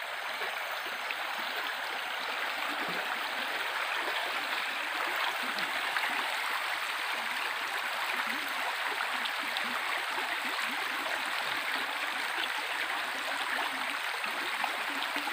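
Shallow stream running fast over a bed of rounded stones: a steady rush of water.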